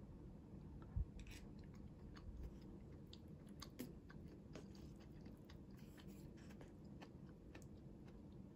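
Faint scattered clicks and soft wet sounds of chopsticks picking through and stirring noodles in a paper cup, with one low thump about a second in.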